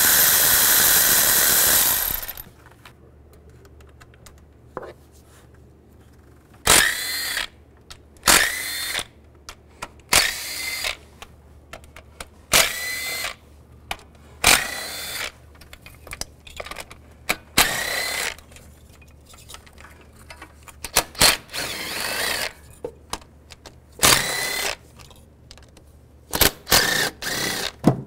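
Cordless power ratchet with a 10 mm socket spinning out valve cover bolts. One steady run of about two seconds at the start, then about a dozen short whirs of under a second each, with clicks and rattles of parts being handled between them.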